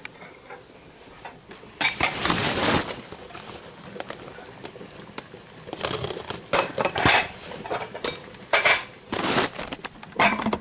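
Kitchenware handled during cooking prep: dishes and utensils clattering and knocking in short bursts, with a longer, noisier stretch about two seconds in and a run of clatters in the second half.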